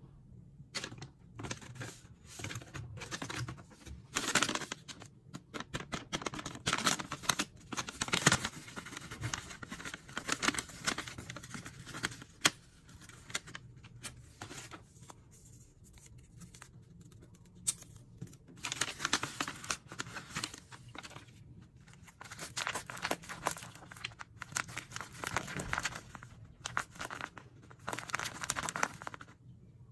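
A homemade paper blind bag wrapped in clear tape being handled and torn open: paper and tape crinkling and tearing in irregular bursts, with a quieter stretch about halfway through.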